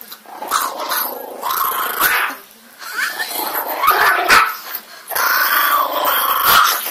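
Small toy dog growling at its owner in four rough bursts, the last one the longest, guarding its plate of pasta.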